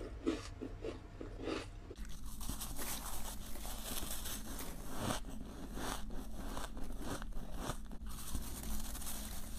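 Close-miked crunching and chewing of soft white snowflake ice, bitten off in quick crunches about three a second. About two seconds in it changes to a denser, continuous run of crunching chews.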